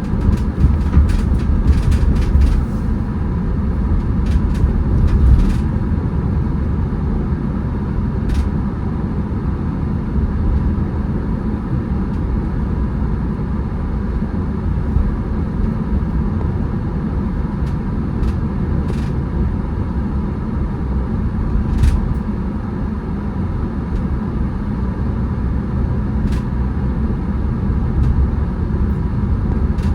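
Car driving: a steady low rumble of road and engine noise, with a few faint clicks.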